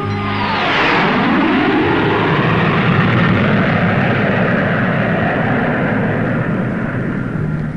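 Aircraft flying close past. A high whine drops sharply in pitch in the first second or so, then a loud steady rushing roar follows and eases slightly near the end.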